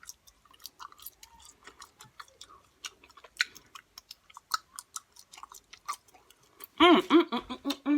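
Chewing and lip-smacking close to the microphone: a run of irregular sharp clicks, several a second. Near the end comes a drawn-out vocal sound that slides up and down in pitch.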